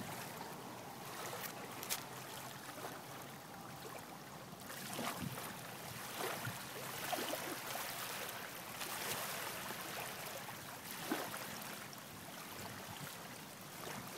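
Water lapping and trickling at a pond's edge: a steady, soft wash with a few faint clicks.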